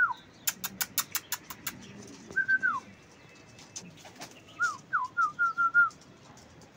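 Short clear whistles, each held level and then dropping in pitch, in two groups: one near the middle and a quicker series of four or five near the end. About half a second in, a fast run of about seven sharp clicks.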